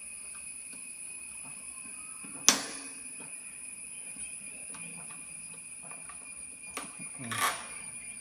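Steady high-pitched chirring of crickets, with a single sharp knock about two and a half seconds in and a lighter knock and rattle near the end.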